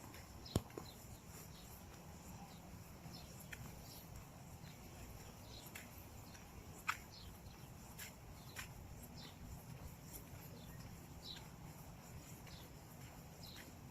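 Faint, scattered short chirps of small birds over a low steady rumble, with one sharp click about half a second in.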